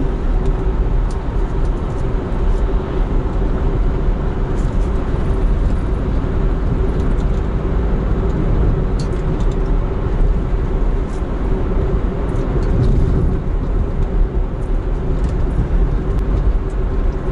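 Car driving at a steady cruising speed on a paved road: tyre and engine noise heard from inside the cabin, with a steady low hum.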